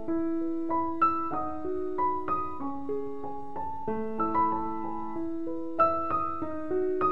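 Background piano music, gentle and slow, with notes struck about every half second and left to ring.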